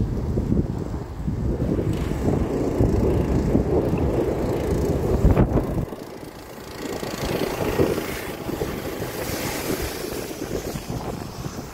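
Wind buffeting the microphone of a moving bicycle, a dense low rumble with a single sharp knock about five seconds in. The rumble drops away about six seconds in, leaving a lighter, higher hiss.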